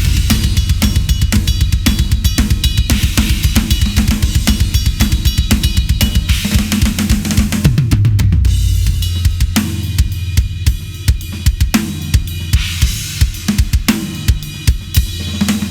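A drum kit being played: a Ludwig Raw Brass 14x6.5 brass snare with Evans heads and Puresound wires, damped by a Snare Weight M100, over bass drum, hi-hat and cymbals. A fast, dense groove gives way about nine seconds in to sparser, harder hits.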